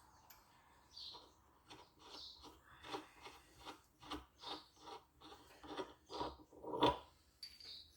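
Light, irregular metal clicks and scrapes as the parts of a threaded-rod bush press and a spanner are handled and taken apart, with the sharpest click near the end.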